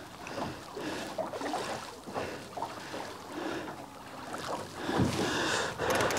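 Water lapping and sloshing against the hull of a small boat at anchor, with wind on the microphone and a louder rush about five seconds in.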